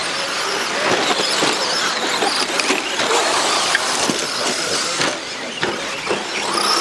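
Several radio-controlled 2WD short course trucks racing together, their motors whining up and down in pitch as they speed up and slow down, with a few sharp knocks among them.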